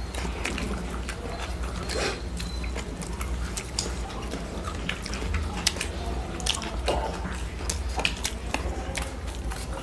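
Chewing and mouth sounds of people eating rice and fish curry by hand, with many short clicks and scrapes as fingers mix the food on stainless steel plates, over a steady low hum.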